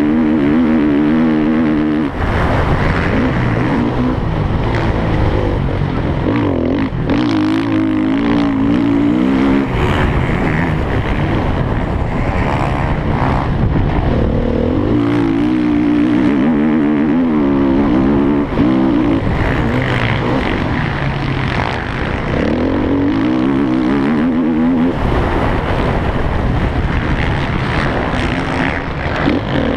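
Motocross bike engine racing, heard on board, its pitch climbing and dropping again and again as the throttle is opened and shut through corners and jumps, with rough rushing noise whenever it is off the throttle.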